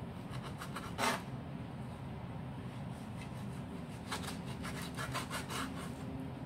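Chef's knife sawing and scraping through raw beef against a wooden cutting board, trimming off the fat: one sharp stroke about a second in, then a quick run of short strokes from about four seconds in.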